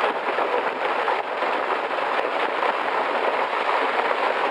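Rockfall: rocks and boulders clattering down a steep rocky slope, a continuous dense rattle of many small impacts.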